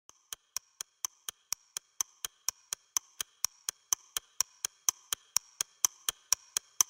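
Steady, evenly spaced ticking, about four ticks a second, growing louder throughout: the ticking intro of a background music track.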